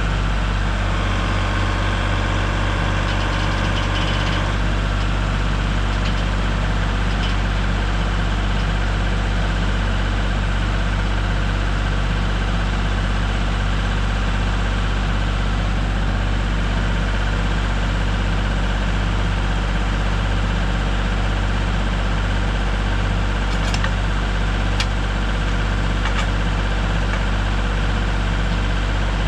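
An engine running steadily at idle, its tone changing slightly about four seconds in, with a few sharp clicks near the end.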